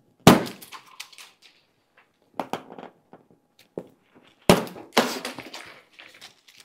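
Tensioned plastic strapping bands around a shipping box being cut and snapping loose: a sharp snap about a quarter second in and another about four and a half seconds in, each followed by a spell of smaller clicks and rustling, with a few lighter clicks between.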